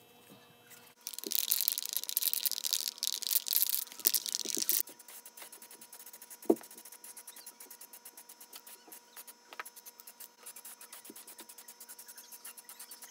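Scraping on a workpiece: a loud, rough scrubbing for about four seconds, then a quieter, fast, even scratching with a single sharp knock midway.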